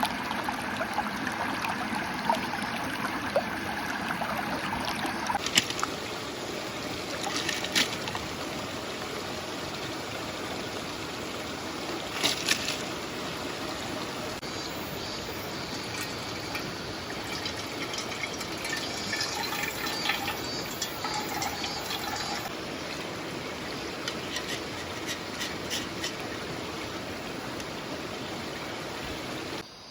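Water of a clear stream trickling steadily, with a few sharp clicks now and then.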